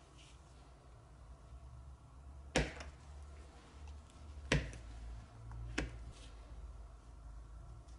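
Metal palette knife cutting through a block of frozen acrylic paint and knocking down onto the hard surface beneath: three sharp clicks, about two seconds apart, then a second apart.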